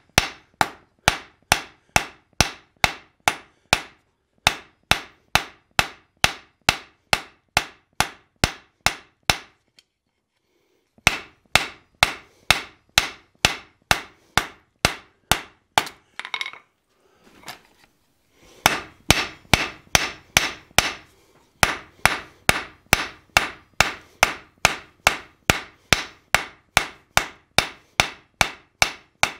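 Hand hammer striking red-hot steel bar stock on an anvil, a steady rhythm of about two and a half blows a second, flaring out the end of the bar. The hammering stops for about a second and a half a third of the way in, and again briefly about two-thirds in, where some rustling is heard, then resumes.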